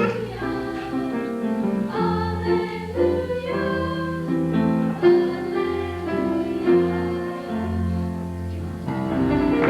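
Music: held melody notes over a steady bass line, from a stage show's accompaniment.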